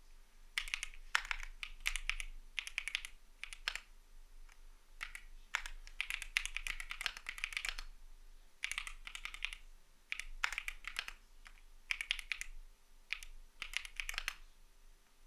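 Typing on a CIDOO V75 mechanical keyboard with Matte switches: runs of quick keystrokes with short pauses between, stopping about a second before the end.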